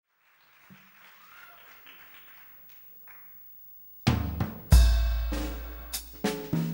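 Faint background noise, then about four seconds in a live jazz-fusion band comes in loud. A drum kit plays kick, snare and cymbal hits over long, decaying low bass-guitar notes.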